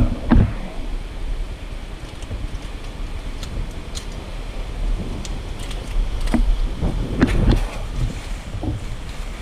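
Wind buffeting the microphone with scattered footsteps, scuffs and knocks of someone climbing down a steep, slippery rocky slope; the loudest knocks come just after the start and about seven seconds in.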